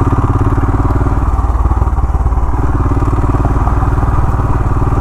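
Royal Enfield Himalayan single-cylinder motorcycle engine running steadily at low revs in an even train of firing pulses, riding slowly over a rough dirt track off-road.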